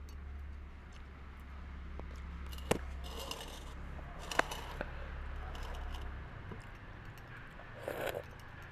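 A steady low hum that stops about six seconds in, under light handling noise with two sharp clicks and a short rustle near the end.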